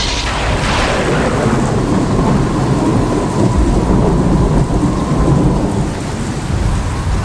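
A thunderclap: a sudden sharp crack at the start that falls away into a long low rumble, over steady rain.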